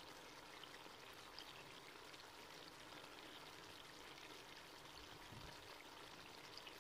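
Faint, steady sizzling with light scattered crackles from chicken karahi cooking in a metal pan over the heat.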